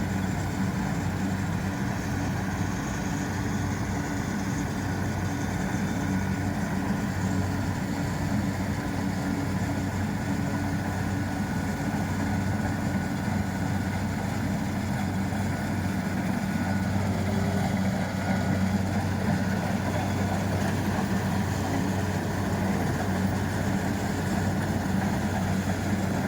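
Kubota rice combine harvester running steadily as it harvests, its diesel engine giving a constant low hum under a haze of machinery noise.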